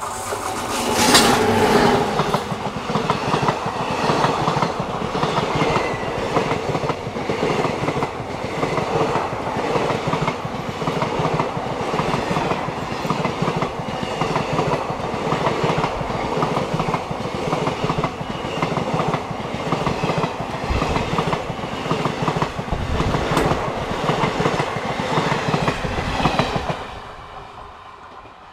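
A train passing close by at speed. The loudest rush comes as the front goes by about a second in. A long run of coaches follows, their wheels clattering rhythmically on the rails, until the end of the train passes about 26 seconds in and the sound fades away.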